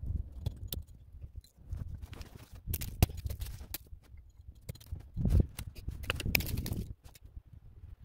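Several sharp knocks and cracks, the loudest about three and five seconds in, as dead lower branches are struck off a spruce trunk with a hand tool, with crunching and shuffling of snowshoes in snow and brush between the strikes.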